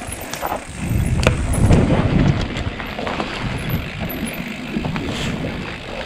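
Mountain bike riding down a dirt trail: tyres on the ground and the bike rattling, with a low rumble that is heaviest from about one to two and a half seconds in and a few sharp knocks over it.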